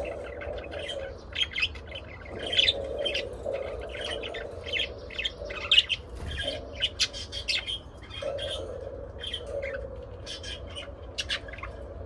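Pet budgies and lovebirds chattering, with a steady run of short chirps and squawks and some sharper calls standing out. A low steady hum sits behind them in stretches.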